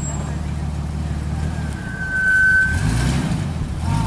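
Off-road vehicle engine running at low speed, picking up revs briefly about three seconds in. A short high-pitched squeal sounds about two seconds in.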